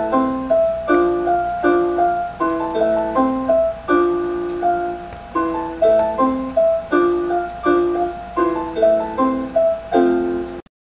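Piano theme music: a quick, even run of short struck notes and chords. It cuts off abruptly near the end.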